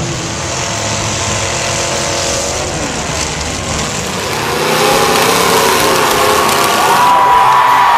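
Demolition derby car engines revving, their pitch rising and falling, louder from about halfway through.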